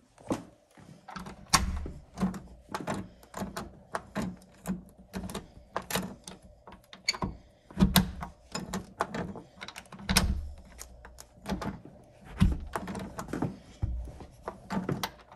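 Balcony door being worked by its handle: the latch and handle rattle in irregular clicks, with several dull thumps as the door is pushed and pulled against its frame. The door is stiff and won't give.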